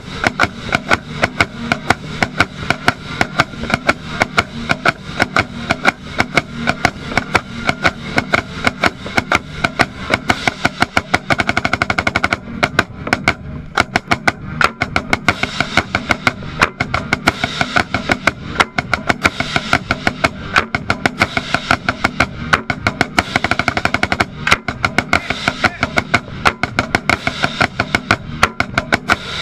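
Marching band playing, heard from inside the snare line: rapid, crisp snare drum strokes are the loudest sound, over the band's held notes.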